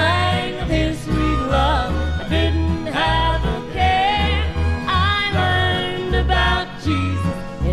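Country gospel band music from a live recording: a steady pulse of bass notes under guitars and a bending melody line.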